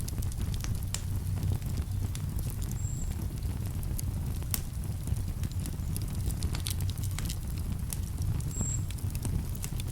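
Wood campfire crackling, with frequent sharp snaps and pops at irregular intervals over a steady low rumble.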